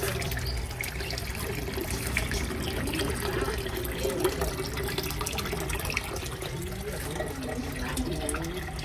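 Water pouring from a hose into an aquarium, splashing and bubbling steadily as the tank refills.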